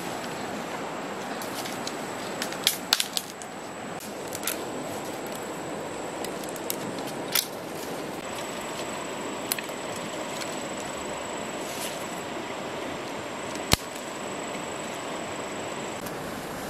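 Dry sticks and bamboo branches snapping and clattering as they are broken and piled. There is a cluster of sharp cracks about three seconds in, then single cracks every few seconds, the sharpest about three seconds before the end. Under them runs the steady rush of a nearby stream.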